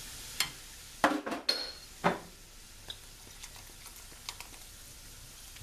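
A cooking utensil clattering and knocking against a metal pot several times in quick succession, one knock ringing briefly, then a few faint ticks over a low simmering hiss.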